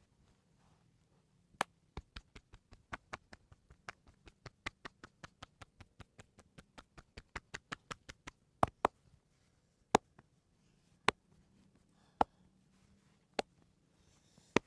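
A masseur's hands tapping and slapping during an Indian head massage: a quick, even run of sharp taps at about five a second for several seconds, then slower single, louder slaps about once a second.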